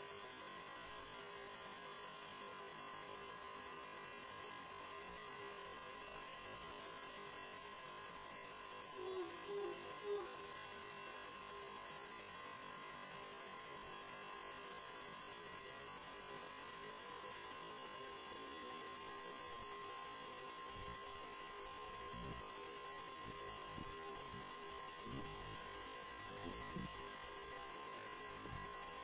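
Steady electrical hum with a thin high whine, faint throughout. About nine seconds in there are a few brief squeaky sounds, and in the second half some soft low thumps.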